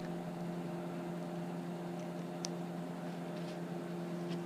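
A steady low machine hum, as of a fan or motor running in the room. A faint light tick comes about halfway through and another near the end.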